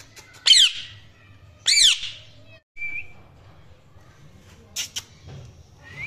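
Male Indian ringneck parrot giving two loud, harsh squawks about a second apart, each sweeping down in pitch. A short whistled note follows, then a brief sharp call near the end.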